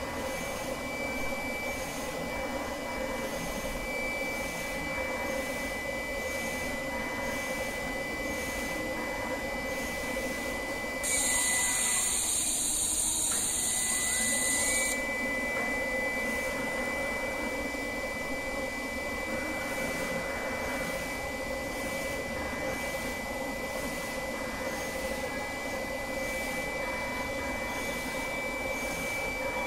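Automatic FPC die-cutting machine running: a steady mechanical hum with a thin high whine. About eleven seconds in, a loud hiss starts and lasts about four seconds.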